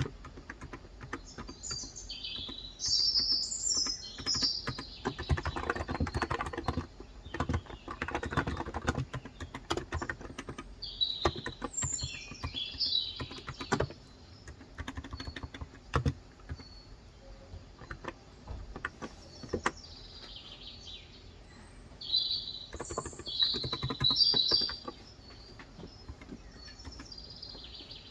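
Typing on a Cox Endeavor electro-capacitive (topre-style) keyboard with light 35 g switches, in irregular runs of soft key clicks. Birds chirp outside in three bouts of high twittering, the loudest near the start and again about three-quarters of the way through.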